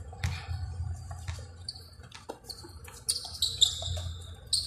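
Basketball shoes squeaking on the court in a quick cluster of short, high-pitched squeaks about three seconds in. Before that the ball thuds faintly a few times as it is dribbled.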